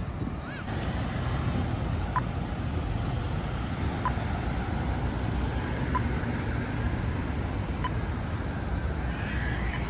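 Road traffic running steadily at an intersection, with a pedestrian crossing signal's short beep repeating about every two seconds. A brief chirping comes near the end.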